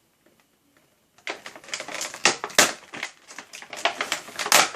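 Near silence, then about a second in, plastic packaging crackling and crinkling in a quick run of sharp crackles as it is handled and torn open by hand.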